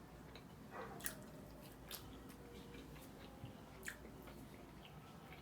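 Faint chewing and mouth sounds of eating turkey leg meat, with a few soft, wet clicks spaced about a second apart.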